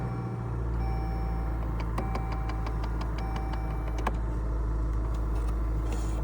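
Dodge Journey running with the climate control on, a steady low hum, with sharp clicks from behind the dashboard about two seconds in and again near four seconds, and fainter ticks between them. The clicking is the typical sign of a failing HVAC blend door actuator.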